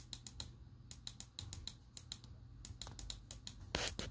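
Keys on a low-profile computer keyboard clicking in quick, uneven taps, several a second, with a short scrape about three-quarters of the way through.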